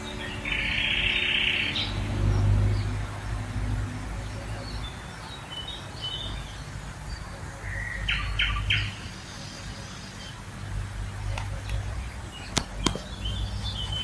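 Wild songbirds singing and calling: a buzzy trill about a second in, scattered high chirps, and a quick run of sharp notes about eight seconds in. Two sharp clicks near the end.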